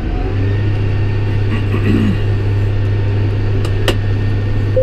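John Deere 6110R tractor's four-cylinder diesel engine running, heard from inside the cab: a steady low drone that sets in and firms up just after the start and then holds even, with a single sharp click a little before the end.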